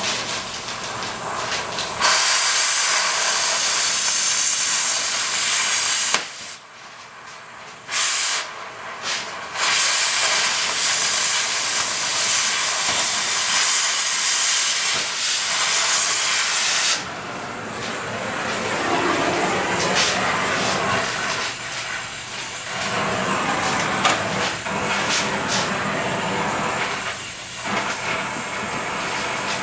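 Loud hissing, like a jet of air or gas, that starts about two seconds in, breaks off for a couple of seconds, returns in short bursts, then runs on and eases off somewhat in the second half.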